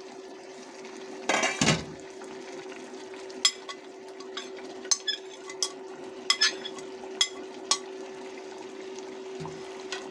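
Metal ladle scraping and tapping against a paper plate and the rim of an aluminium pot as boiled potato chunks are pushed into hot masala. There is a louder rushing burst about a second and a half in, then a string of sharp taps. A steady hum from the induction cooktop runs underneath.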